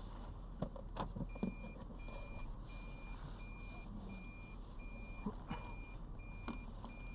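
Electronic warning beeper sounding a high, even beep about one and a half times a second, starting about a second in, over steady low background noise and a few knocks and clicks.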